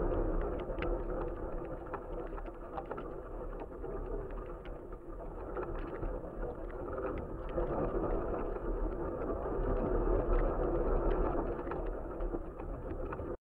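Wind buffeting the microphone of an action camera riding on a flying box kite: a steady rushing noise with a low rumble and many small scattered ticks and rattles. The sound cuts off suddenly at the very end.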